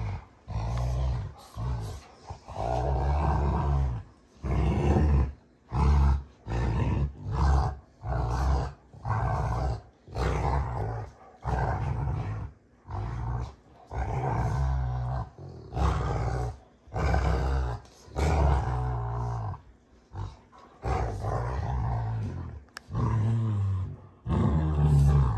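Two Rottweilers growling at each other while play-wrestling, a long string of deep growls, each a second or so, with short gaps between.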